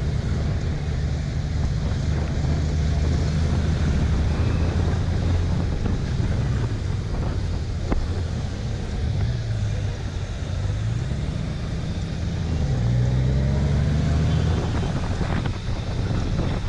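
Honda Gold Wing 1800's flat-six engine running at low road speed, its pitch rising and falling with the throttle, with wind buffeting the microphone.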